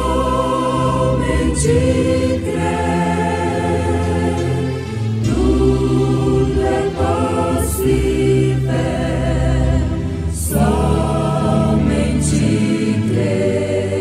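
A choir singing a slow gospel hymn in long held chords that change every two to three seconds, over a low instrumental bass.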